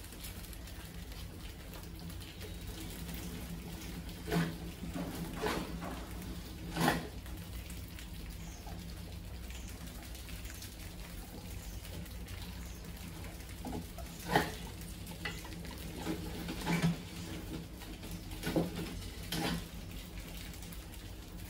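Rats scrabbling over a glass tank trap and its wire-mesh lid: scattered light clicks and knocks of claws and bodies on glass and metal, over a steady low background hum.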